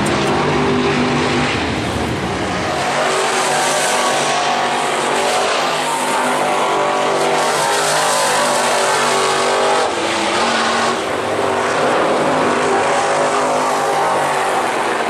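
Dirt-track race car engines running: a close engine at a low, steady pitch for about the first three seconds, then several cars racing on the track at high revs.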